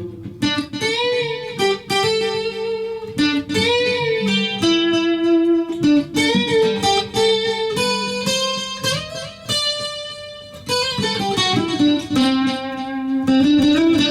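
Acoustic guitar with built-in effects, playing a melodic line of single plucked notes, some bent or slid so that they glide in pitch, each ringing on.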